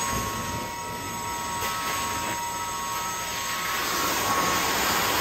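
Truck-mounted hot water extraction carpet cleaner's floor wand drawing suction as it is pulled across carpet: a steady rushing hiss with a high whistle, growing louder about four seconds in.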